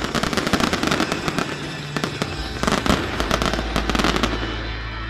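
Fireworks display: many shells bursting in rapid succession, a dense run of bangs and crackles that thins out near the end.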